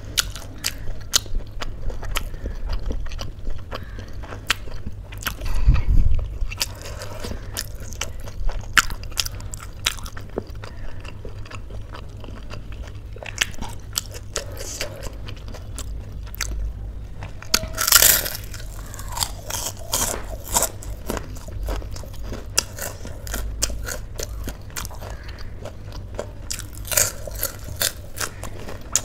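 Close-miked eating sounds: crisp bites and chewing, crunching raw vegetables including cauliflower florets. Many short crackles throughout, with one louder crunch about eighteen seconds in.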